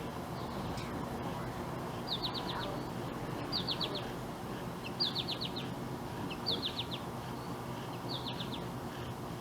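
A small bird singing outdoors, repeating a short phrase of four or five quick, high chirps about every one and a half seconds.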